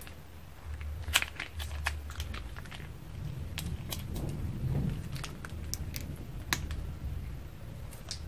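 Plastic piping bag crinkling and clicking as it is squeezed, with scattered sharp crackles as blue slime is pressed out into a plastic bowl.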